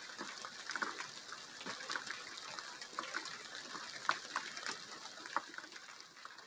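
Rain falling steadily, a hiss with many separate drops ticking, fading away toward the end.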